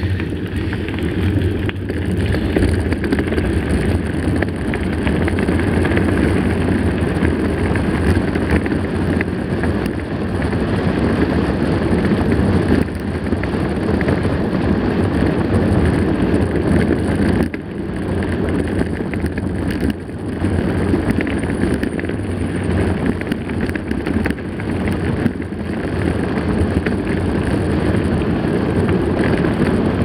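Mountain bike rolling on a gravel dirt road, heard from a handlebar-mounted camera: a steady low rumble of tyres on loose gravel mixed with wind buffeting the microphone.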